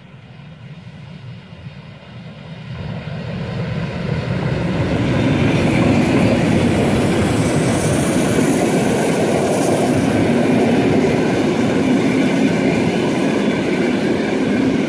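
Steam-hauled train approaching and passing close by: the sound grows louder over the first five seconds or so as the steam locomotive comes up, then holds loud and steady as a rake of old passenger coaches rolls past with wheel clatter on the rails.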